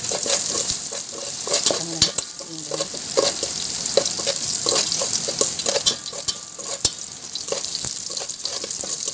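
Chopped garlic sizzling in hot oil in a pot, stirred with a spatula that scrapes and taps against the pot again and again.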